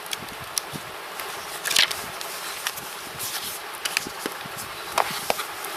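Handling of CD album packaging and photo cards: soft rustling and light clicks, with a short louder rustle about two seconds in and a couple of sharper ticks near the end.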